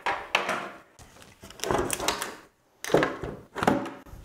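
A pair of 12 V lead-acid batteries being pushed into a UPS's plastic case: several bouts of scraping and knocking as the pack slides in.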